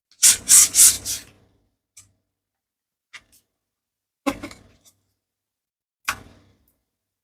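Mini latex balloons and their packaging being handled: a quick run of crinkly crackles near the start, a few faint clicks, then two sharp single snaps about two seconds apart.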